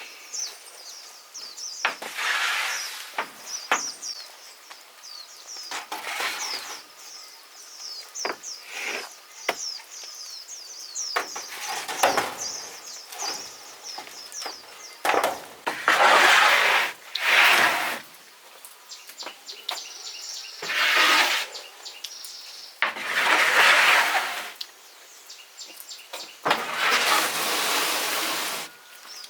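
A bird chirping in quick repeated notes for about the first half, over intermittent bursts of scraping, rasping noise that each last a second or two, as from hand work on wood.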